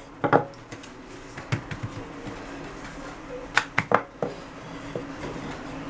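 Light knocks and taps of a wooden rolling pin and hands on the worktop as naan dough is rolled out and pressed flat, several short knocks with a quick cluster a little past halfway, over a faint steady low hum.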